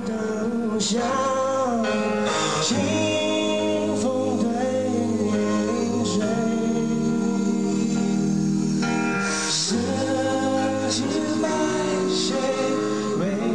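Karaoke song playing: a slow ballad with a singing voice over instrumental backing, the voice holding long notes.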